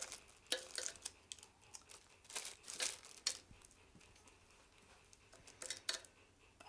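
Metal spoon scooping thick barbecue sauce from a bowl and spreading it over cubed pork in a slow cooker: faint, irregular clicks and scrapes, with crinkling of the plastic slow-cooker liner.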